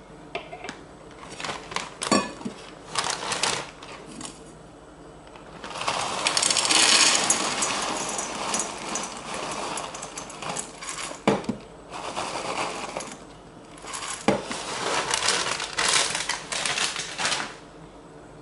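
Dry grain-free cereal rings poured from a plastic bag into a metal bowl, rattling against the metal and each other, with the bag crinkling. It comes in several pours, the longest and loudest about six to ten seconds in, with a few sharp clicks between them.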